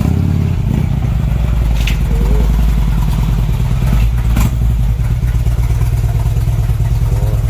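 Motorcycle engine running steadily at low revs as the bike is brought up into a wheel rack, with two sharp clanks about two and four and a half seconds in.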